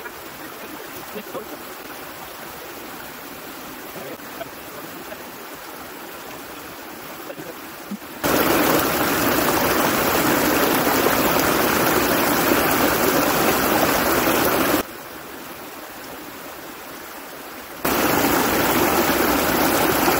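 A small stream running, a steady rush of water. It jumps abruptly from fairly quiet to much louder and closer about eight seconds in, drops back for a few seconds, then jumps loud again near the end, with a few faint clicks in the quieter stretches.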